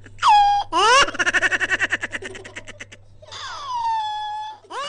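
High-pitched, giggly laughter: a squeal that rises and falls, then a fast run of 'ha-ha-ha' pulses, then another long falling squeal about three seconds in. It is most likely a laugh dubbed over the grinning monkey rather than the monkey's own call.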